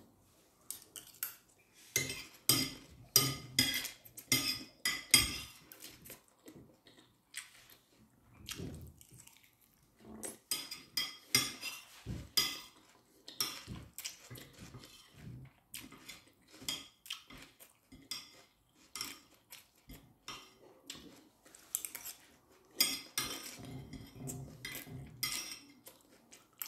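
Metal spoon clinking and scraping against a ceramic plate in short, irregular strokes, scooping up the last of the rice.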